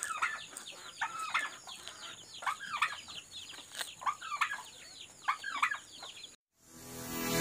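Chickens clucking over and over, with a steady high tone underneath. About six seconds in the sound cuts off sharply, and guitar music fades in near the end.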